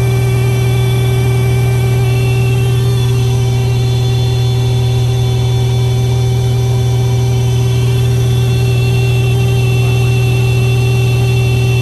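A Beechcraft Baron 55's remaining Continental IO-520 engine and propeller run steadily at one unchanging pitch, heard inside the cabin. This is single-engine flight: the left engine has failed and its propeller is feathered.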